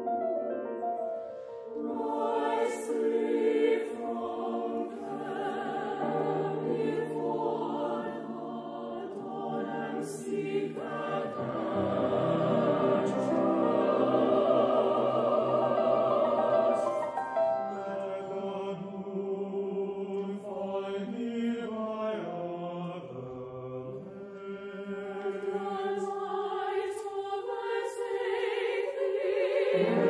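Choir singing in long held chords, several voice parts together with vibrato, with a soft shared consonant hiss every few seconds.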